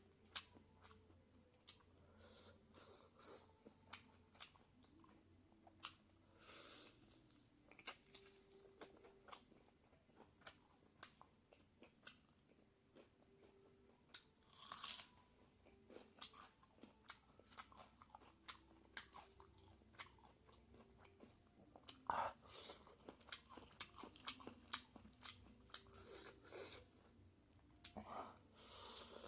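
Close-miked eating of pork and bamboo shoot curry: chewing and biting with many small crunchy clicks and wet mouth sounds, and a louder burst now and then, the loudest a little past the middle.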